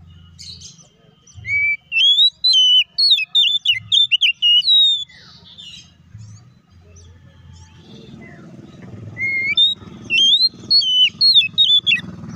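Oriental magpie-robin (kacer) singing: two loud bursts of quick, twisting whistled notes, the first starting about two seconds in and lasting some three seconds, the second near the end. A low rumble builds underneath in the second half.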